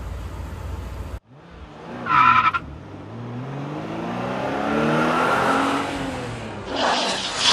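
Car sound effect: a short tire screech about two seconds in, then an engine revving, rising and falling in pitch, building to a rushing whoosh near the end. Before it, a low rumble and hiss cut off abruptly about a second in.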